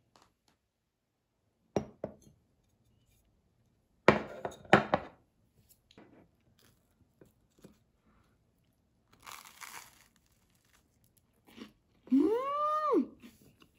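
A few knocks as a plate and a glass of milk are set down on a desk, a brief crunch of toasted bread being bitten, and near the end a woman's pleased 'mmm' that rises and falls.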